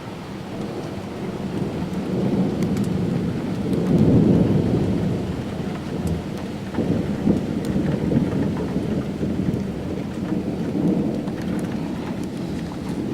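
Thunder rolling in a rainstorm. The low rumble swells to its loudest about four seconds in, rolls on with further swells, and rain keeps up a steady hiss with scattered drop ticks.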